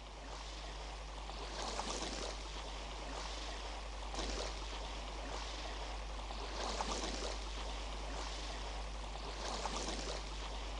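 Water washing and lapping in soft swells, about one every two and a half seconds, over a steady low hum.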